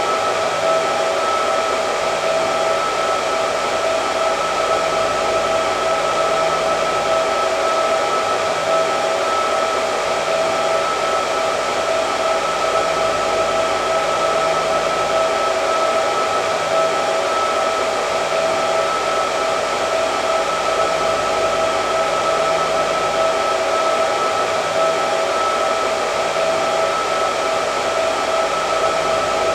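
Hair dryer running steadily: a constant rush of blown air with a steady whine on top.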